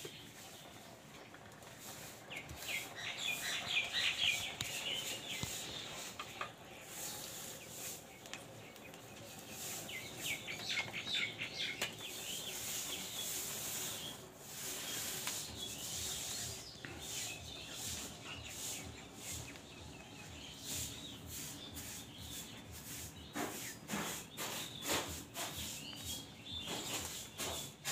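Dry straw rustling and crackling as it is pushed into a clay stove's fire, with sharp clicks and snaps, thickest near the end. Birds chirp in the background a few seconds in and again around ten seconds.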